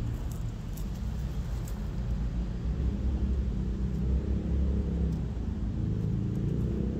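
Low, steady rumble of an engine running, getting slightly louder about two and a half seconds in.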